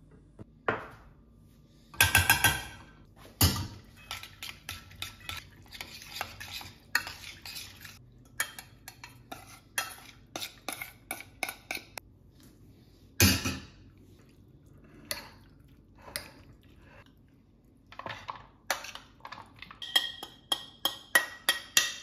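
A metal spoon clinks and scrapes against a ceramic plate and a steel saucepan as cooked farro is spooned out and stirred. There are a few sharper knocks about two, three and a half, and thirteen seconds in, and a quick run of ringing clinks near the end.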